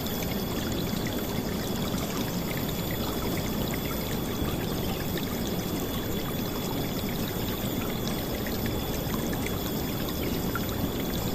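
River water flowing and splashing in a steady, full rush, with a thin, faint high tone held steady behind it.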